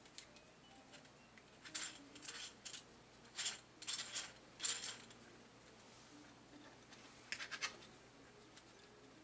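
3D-printed plastic gears clicking and scraping against each other as they are turned and handled, in short bursts: a couple about two seconds in, several between three and five seconds, and one more near seven and a half seconds.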